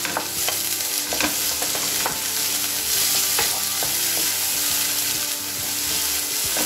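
Chopped onions, ginger-garlic and green chillies frying in butter in a nonstick pan, with a steady sizzle, while a wooden spatula stirs them with frequent short scrapes and taps against the pan.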